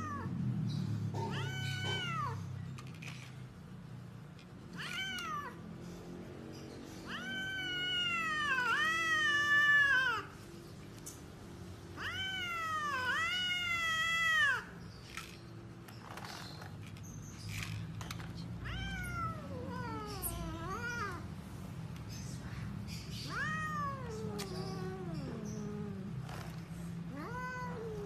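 A cat meowing over and over, about a dozen calls, with two pairs of long, loud, wavering meows in the middle.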